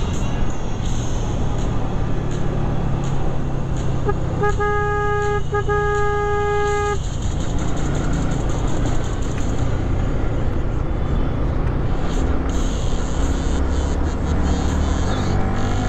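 A single-pitch vehicle horn sounds about four seconds in and is held for roughly two and a half seconds, with a brief break midway. Underneath runs the steady engine and wind noise of a motorcycle being ridden in traffic. Near the end the engine note rises as the bike accelerates.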